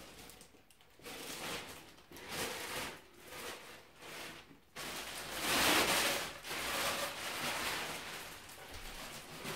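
Packaging and parts being rummaged through by hand: a run of rustling bursts, the loudest about five to six seconds in.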